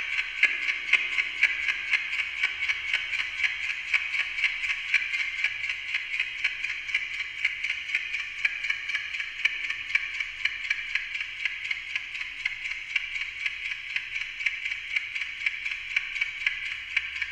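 Amplified ticking of a Westclox Silver Bell Monogram clock, fed through a digital delay system. The ticks pile up into a dense, fast, uneven stream of overlapping delayed copies.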